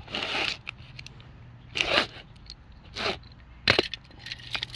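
A key being dragged through packing tape on a cardboard box to slit it open: four short rasping scrapes of tape and cardboard, the first the longest, with small clicks between.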